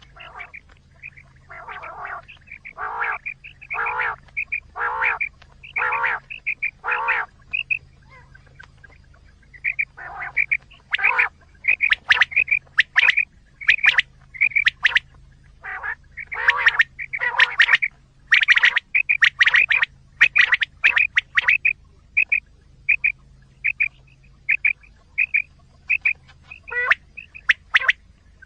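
Quail calls played as a hunting lure: short calls repeated about once a second, some rough and low, others brief high notes, coming in runs that grow denser and louder in the middle.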